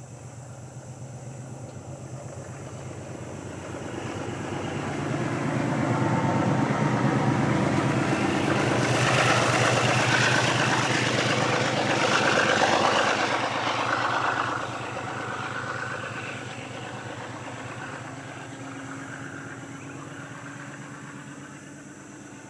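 Pair of diesel locomotives, led by an 830-class Alco, running light engine with a throbbing diesel note. The sound builds over several seconds and is loudest around the middle, drops suddenly a few seconds later, then fades as the locomotives draw away.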